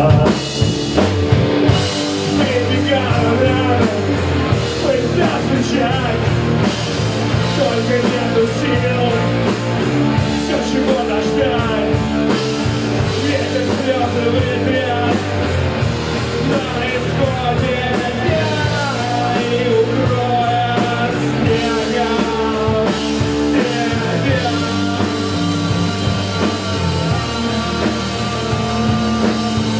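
Live rock band playing: electric guitars, bass guitar and drum kit, with even cymbal strokes through the first twelve seconds or so.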